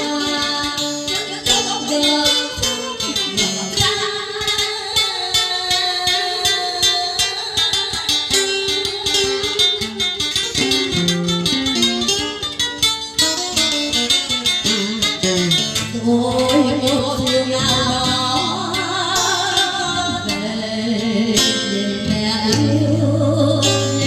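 Music: an instrumental passage of a Vietnamese song's accompaniment, led by plucked strings, with a deeper bass line coming in about halfway through and a wavering melody line after it.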